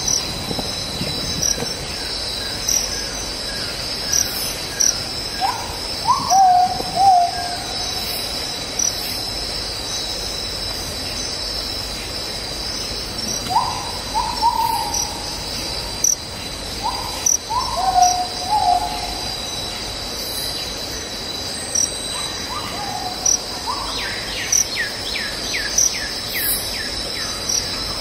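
Forest insects buzzing steadily at a high pitch, with a bird giving short, low, falling calls every few seconds. Near the end a bird gives a quick run of about ten falling high notes.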